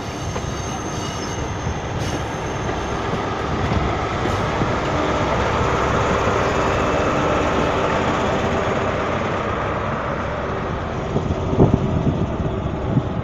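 InterCity 125 (HST) train pulling away over the pointwork, its coaches' wheels rumbling and clattering. The rear Class 43 power car's diesel engine passes with a steady hum, at its loudest about six to eight seconds in, then fades. A few sharp knocks come near the end.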